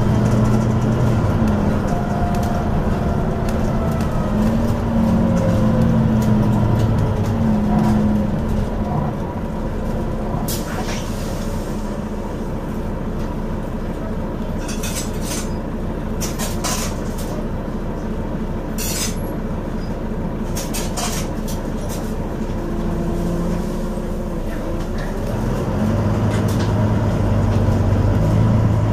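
Dublin Bus GT 23 double-decker heard from inside on the move: its diesel engine drones, rising and falling in pitch early on, easing off in the middle and picking up again near the end. Clicks and rattles from the fittings come through, along with a faint steady whine.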